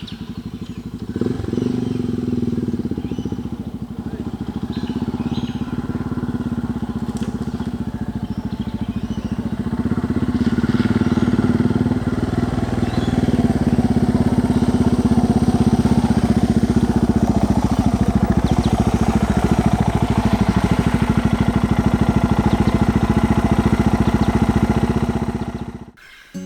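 Suzuki DR650's single-cylinder engine running, getting louder about ten seconds in and again a few seconds later, then cut off suddenly near the end.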